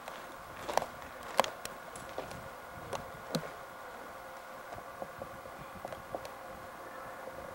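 Footsteps scuffing and knocking on rock and gravel, a few sharp clicks in the first few seconds and fainter ticks after, over the steady hum and hiss of an old camcorder's tape recording.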